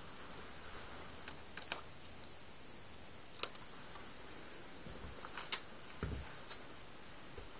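Handling noise: a few light, irregular clicks and taps with some soft low thumps in between, over quiet room tone.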